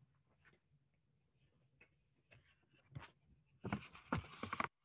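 Near silence: faint room tone with a low hum, then about a second of scratchy rustling near the end.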